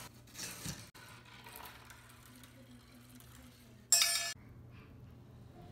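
A marble dropping into a metal can at the bottom of a plastic marble run, one short, loud, ringing clink about four seconds in.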